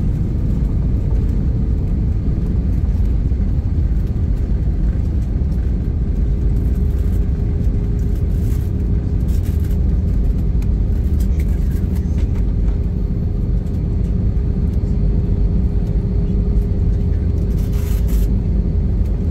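Cabin noise of a jet airliner rolling on the ground after landing: a steady low rumble from the engines and wheels, with a faint steady whine that drops away early and returns about six seconds in.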